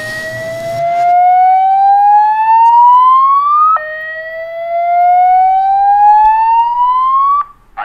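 Loud siren-like whine that climbs steadily in pitch for about four seconds, drops back abruptly and climbs again, then cuts off shortly before the end.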